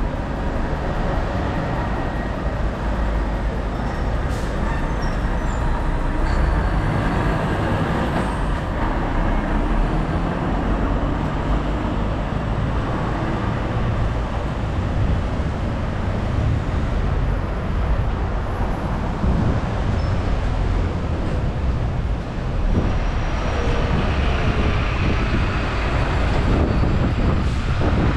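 Steady low rumble of vehicle noise, with no single event standing out.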